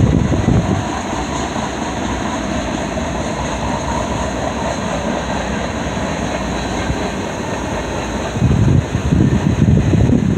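Freight train rolling past with a steady rumble and rush of wheels on rail. Wind gusts buffet the microphone at the start and again near the end.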